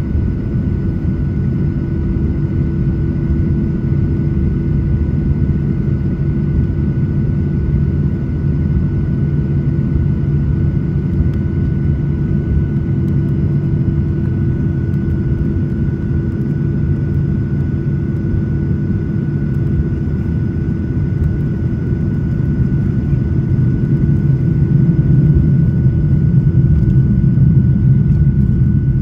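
Airliner cabin noise from a window seat: a steady low rumble of the jet engines with a constant whine on top, growing a little louder over the last few seconds.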